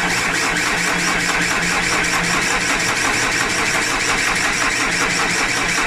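A 2010 Vauxhall Insignia's diesel engine being cranked over on the starter motor with a steady, even rhythm, turning but not firing. Barely any diesel is reaching the high-pressure rail, a no-start the owner traced to a lazy fuel pump.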